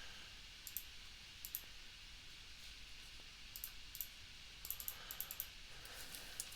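Faint, sharp clicks of a computer mouse and keyboard, a few spaced single and double clicks, then a quick run of clicks about five seconds in, over a low steady hiss.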